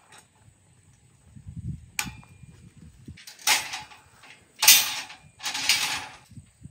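Steel rebar being slid through the wire stirrups of a reinforcement cage: a sharp metallic click about two seconds in, then three scraping rasps of metal on metal, the middle one the loudest.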